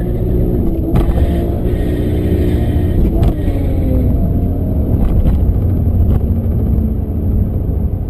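BMW M5 engine heard from inside the cabin under hard driving, its pitch falling over the first few seconds as revs drop, then running steadily lower. A few short sharp knocks come through during the run.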